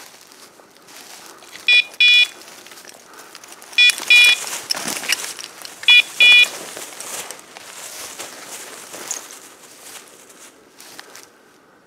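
A hunting dog's beeper collar sounding three double beeps, about two seconds apart, each pair a short tone then a longer one. Underneath, steady rustling and crackling of feet moving through dry leaves and brush.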